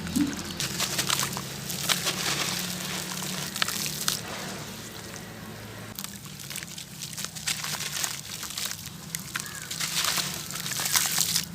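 Gritty sand-cement hearts crumbling in water: wet sloshing with a dense, irregular crackle of small grainy clicks.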